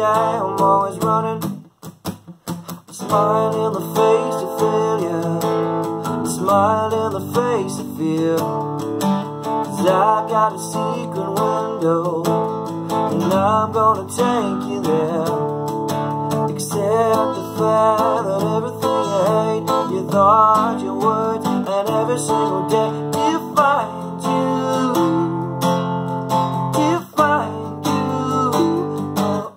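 Acoustic guitar strummed in chords, with a man singing along. The playing drops out briefly about two seconds in, then carries on.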